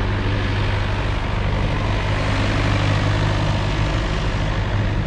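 Vintage tractor engine running steadily with a low, even hum as the tractor drives past close by.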